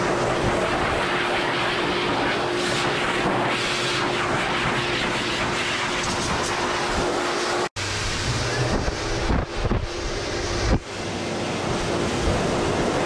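High-velocity dog dryers blowing air through a Newfoundland's thick coat: a steady rushing of air over a constant motor hum. The sound cuts out for an instant a little past halfway, then wavers and dips for a few seconds as the nozzles move through the fur before steadying.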